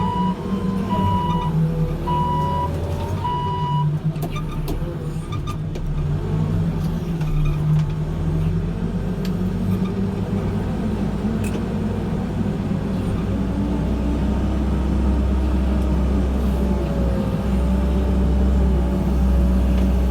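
Backhoe loader's diesel engine running steadily under load, with a reversing alarm beeping about once a second for the first four seconds and then stopping. The engine's low rumble grows heavier in the second half.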